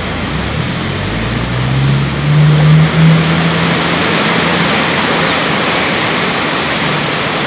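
Steady roar of breaking ocean surf. Through it, a motor vehicle's engine rises in pitch about a second in, is loudest for a couple of seconds, then fades.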